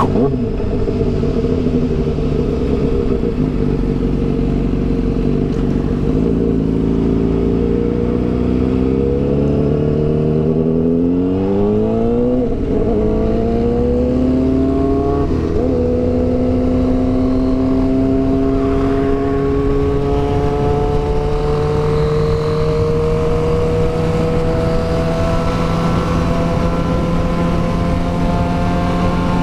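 Honda CBR 600RR inline-four running through a straight-pipe exhaust, heard from the rider's seat on the move. The engine note holds fairly steady, then rises in two quick pulls that each drop at an upshift, about twelve and sixteen seconds in, and after that climbs slowly and steadily.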